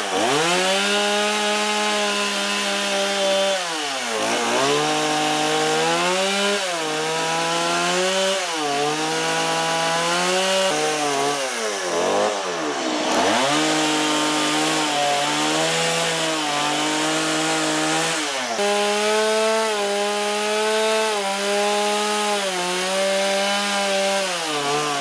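Stihl chainsaw running as it carves into wood, its engine pitch dropping and climbing back every couple of seconds as the bar cuts.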